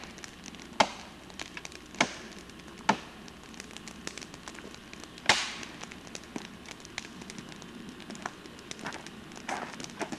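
Dry branches snapping in a few sharp cracks about a second apart as brush is broken up by hand, the loudest crack about five seconds in. Rustling of dry brush near the end.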